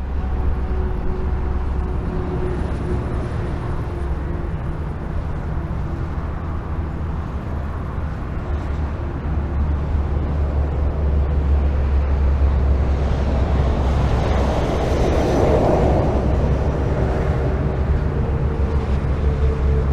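Highway traffic: a continuous rumble of cars and tyre noise, with a strong low drone, swelling louder for a few seconds about fifteen seconds in.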